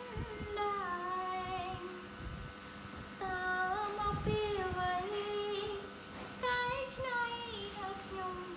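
A high-pitched voice singing a slow tune in three short phrases of held notes, each phrase stepping down in pitch.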